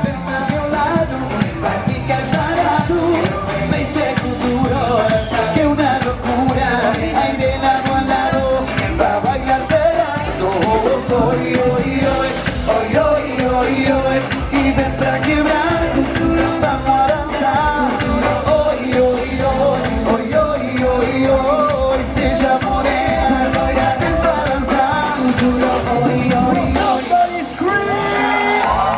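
Upbeat music with a singing voice over a steady beat.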